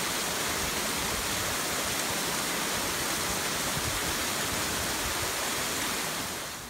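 Waterfall spilling down a rock face onto rocks: a steady rush of falling water that fades out near the end.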